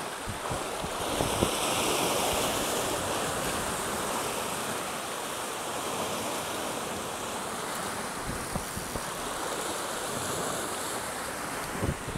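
Sea surf breaking and washing in, with wind on the microphone. There is a brief knock about a second in and another near the end.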